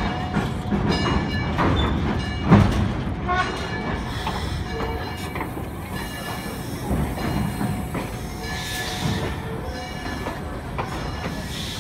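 Passenger train rolling slowly over the track: a steady rumble and clatter of wheels on rail, with a thin, high wheel squeal in the first few seconds and one loud knock about two and a half seconds in.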